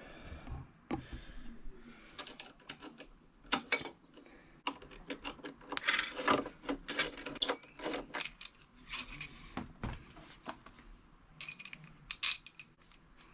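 Irregular metallic clicks and clinks of hand tools working on bolts, as the foot peg mounting bolts are undone.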